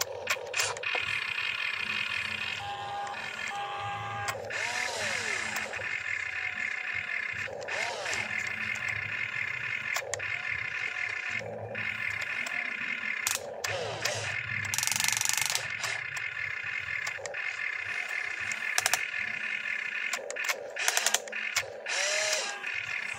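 Small electric gear motors of a toy RC excavator whining up and down in short runs as the arm and bucket move, with ratcheting clicks from the gears, over a steady high hum.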